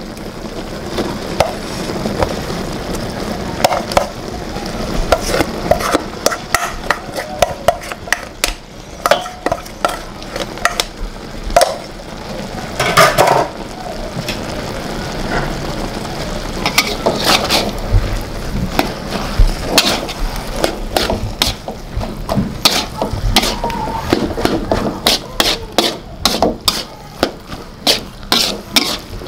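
Fried rice cooking in a wok: a steady sizzle of the boiling sauce under the rice, with repeated sharp scrapes and knocks of the spatula against the wok as the rice is stirred in. The scraping comes in two busy stretches, with a calmer pause in the middle.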